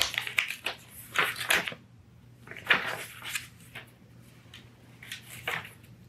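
Stiff paper envelope rustling and scraping as it is handled and a card is slid out, in several short bursts with pauses between them.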